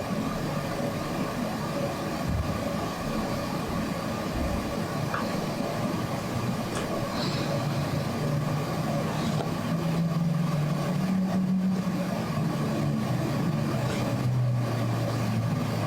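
A steady mechanical hum with a low drone that wavers in pitch during the second half.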